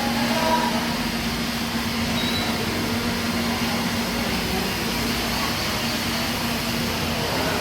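A vacuum cleaner running steadily: a constant motor hum under the rushing hiss of its airflow.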